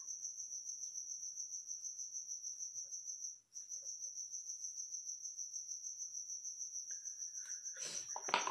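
Cricket chirping: a steady, high, rapidly pulsing trill that drops out briefly about three and a half seconds in.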